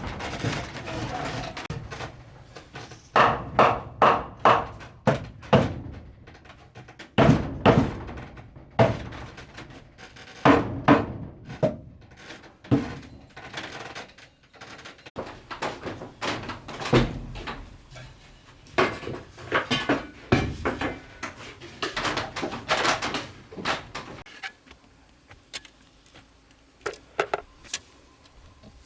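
Wooden knocks and thuds in irregular clusters, typical of hand work on timber during building. They are loud for most of the time, then thin out to a few quieter knocks near the end.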